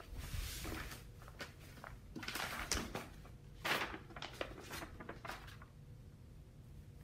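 Fabric and a paper pattern piece rustling as they are handled and laid out on a cutting mat: several brief swishes, the loudest about two and a half and about three and a half seconds in, with a few light taps.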